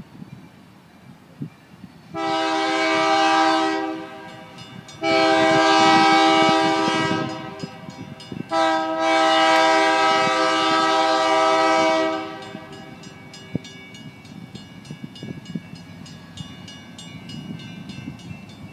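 Lake State Railway diesel locomotive's multi-chime air horn sounding three blasts, the last the longest, as the train approaches on a street-running track.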